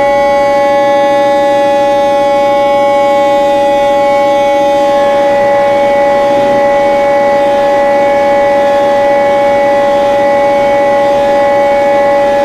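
Loud electronic '4ormulator V19' sound effect: a siren-like tone held steadily at one pitch. About five seconds in, its highest overtones drop away and it turns rougher and buzzier.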